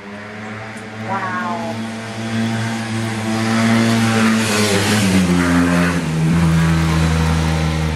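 A motor vehicle's engine running close by, growing louder, its pitch dropping in two steps about five and six seconds in.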